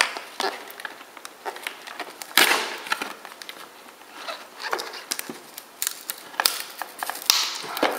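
Cardboard retail box with a glued top flap being pried and torn open by hand: scraping and crinkling, with a sharp rip about two and a half seconds in and more tearing near the end.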